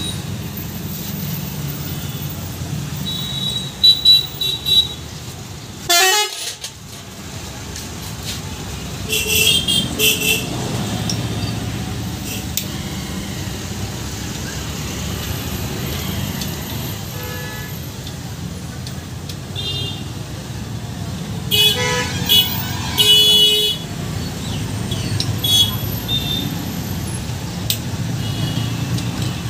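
Steady noise of road traffic passing, with vehicle horns honking several times: short toots about four seconds in and again around nine to ten seconds, and a louder run of honks about twenty-two to twenty-four seconds in.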